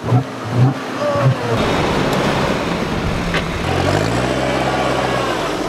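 Off-road 4x4 driving through water: the engine running under load with water churning and splashing around the wheels. About four seconds in, a steady engine note rises in pitch and then holds.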